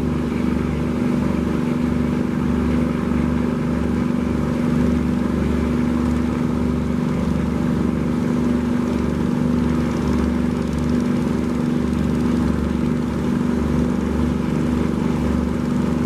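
A boat's engine running steadily: a constant droning hum with an uneven low throb beneath it.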